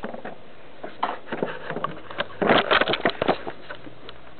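Handling noise: scattered clicks and light knocks, gathering into a dense rattling cluster a little past the middle.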